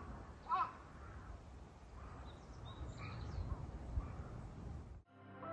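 A crow cawing, a short series of evenly spaced caws with the last one about half a second in; then faint outdoor ambience with a few faint bird chirps and a low rumble, cut off abruptly about five seconds in.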